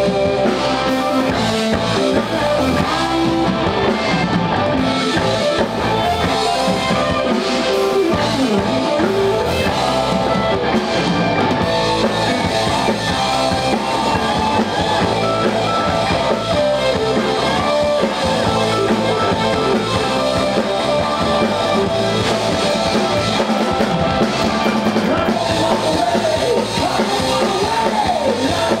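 Rock band playing: electric guitars over a drum kit.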